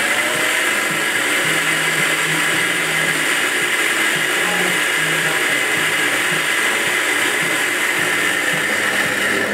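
Commercial electric burr coffee grinder running steadily as it grinds whole coffee beans into a steel dosing cup.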